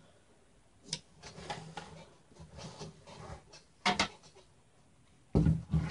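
Clicks, scraping and knocks of a steel computer case and its parts being handled while motherboard standoffs are fitted. There is a sharp click about a second in, then irregular scraping, two sharp clicks around four seconds, and a louder knock near the end.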